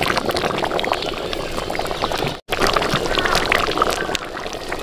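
Thick chicken-feet curry bubbling in a large iron wok while a ladle stirs through it and lifts out a dripping scoop. The sound cuts off abruptly for a moment about halfway through.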